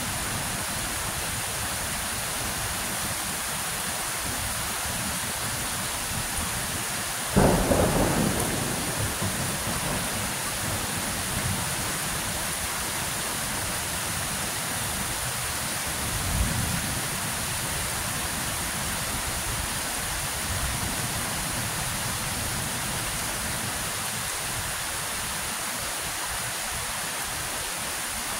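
Steady rain falling, with a sudden loud thunderclap about seven seconds in that rumbles away over a couple of seconds, and a second, fainter low rumble of thunder about halfway through.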